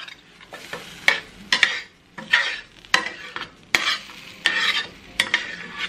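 Slotted metal spatula scraping and tapping against a stainless steel skillet in repeated strokes as ground beef taco meat in sauce is stirred.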